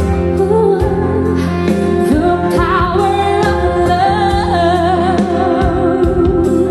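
A song played back through KEF Reference Model Two floorstanding loudspeakers: a singer holds long wavering notes over steady bass and regular drum beats.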